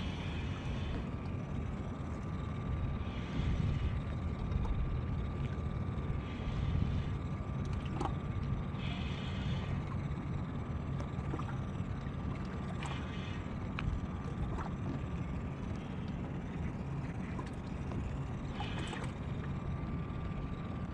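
Fishing boat on open water: a steady low motor hum with a faint steady high whine, and wind and water hiss swelling every few seconds, with a few light clicks.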